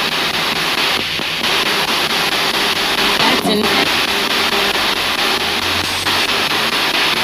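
Spirit box sweeping radio stations through a JBL speaker: steady static chopped with brief fragments of voices and music. A fragment about halfway through is taken by the investigator for a spirit saying "I still love you".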